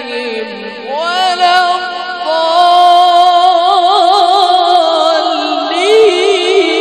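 A male qari's voice reciting the Quran in a drawn-out melodic style, holding long ornamented notes that waver rapidly. The voice glides up in pitch about a second in and moves to a new, higher phrase near the end.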